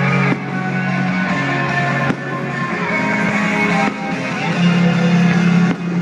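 Rock music with guitar playing, its chords changing every second or two.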